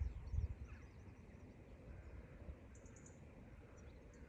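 Faint outdoor ambience in a pasture: low wind or handling rumble on the microphone, strongest in the first half second, with scattered faint high bird chirps.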